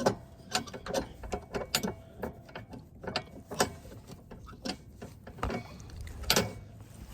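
Irregular clicks and clanks of metal parts and tools being handled under a riding lawnmower while a cable and fittings are worked loose.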